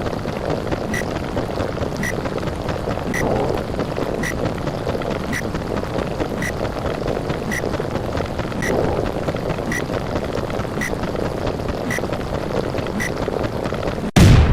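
Underwater ambience sound effect: a steady, muffled water noise with a faint tick about once a second. Near the end it cuts out for a moment and comes back with a loud, low burst.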